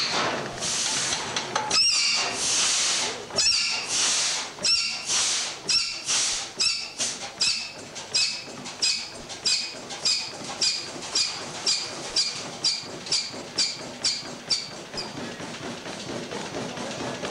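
Large old horizontal stationary engine running with a rhythmic chuffing hiss, one puff per stroke, each with a thin whistle in it. The puffs come long and slow at first, then quicken to about two a second and grow weaker until they die away near the end.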